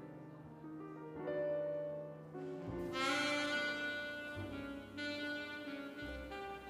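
Slow background music of long held notes, growing louder and brighter about three seconds in.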